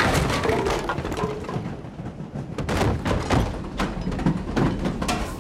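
Fistfight sound effects: a quick series of heavy thuds and crashes of bodies hitting walls and fittings, with wooden panelling splintering at the start, where the loudest crash is.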